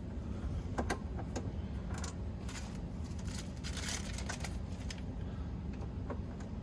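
Scattered light clicks and metallic taps of a small screwdriver and screws being handled while the coffee maker's bottom panel is unscrewed, over a steady low hum.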